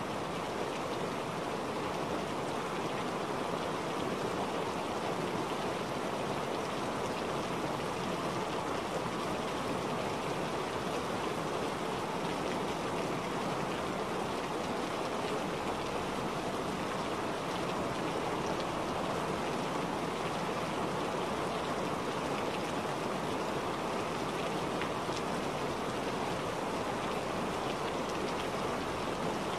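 Steady rainfall, an even hiss of rain with fine pattering drops that does not change.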